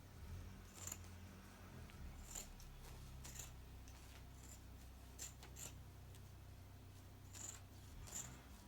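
Scissors snipping through the layers of a quilt, about eight separate cuts at an uneven pace, over a faint steady low hum.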